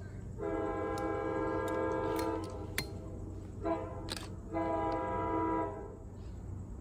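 Multi-tone air horn of an approaching diesel locomotive, FL9 2026 leading an excursion train, sounding a long blast, a short toot and another long blast: the close of the long-long-short-long grade-crossing signal.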